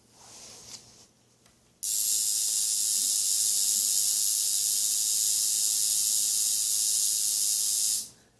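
Electric tattoo machine switched on about two seconds in, running with a steady high hissing buzz, then switched off abruptly near the end.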